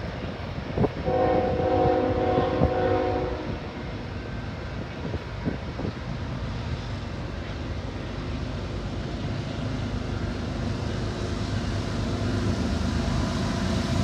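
A diesel freight train's horn sounds one chord blast of about two and a half seconds, starting about a second in. Then the low rumble of the approaching diesel locomotives grows steadily louder.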